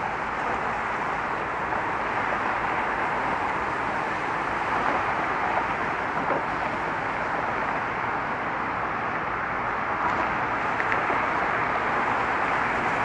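Steady traffic noise from cars crossing a bridge roadway: an even hiss of tyres and engines with no single vehicle standing out.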